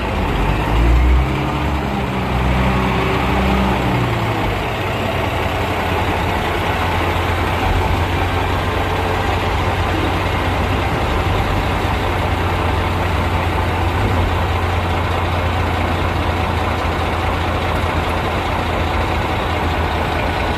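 Caterpillar 627 scraper's diesel engines running. The engine note shifts during the first four seconds or so, then settles into a steady low idle.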